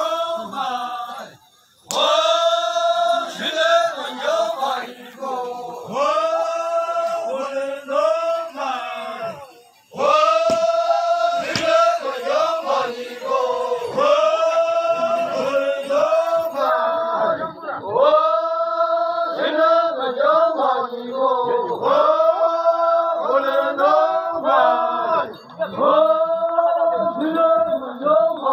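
A group of men chanting a traditional Naga warrior song in unison, in repeated phrases of held notes about two seconds each, with short pauses near the start and about a third of the way in.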